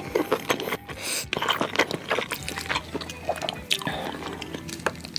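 Close-miked wet mouth sounds of eating spicy noodles: slurping and chewing with many quick, wet smacks and clicks.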